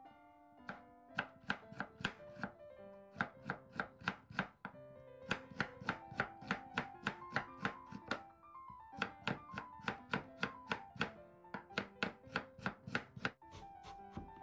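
Kitchen knife chopping slices of radish into matchsticks on a wooden cutting board: quick, sharp strokes about four a second, in runs broken by short pauses. Light background music plays underneath.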